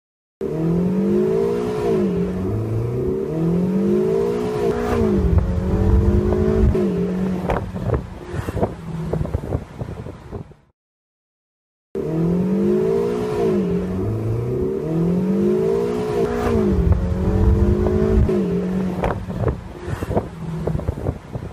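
Ferrari sports car engine revving up and down in a series of blips, then holding a steady pitch with a heavier low rumble and a few sharp clicks. The whole passage plays twice, with a short silence about halfway through.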